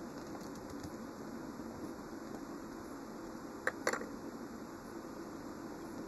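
Small handling noises of fingers working a rubber tyre onto a die-cast toy car's wheel: two light clicks close together about three and a half seconds in, over a steady low hiss.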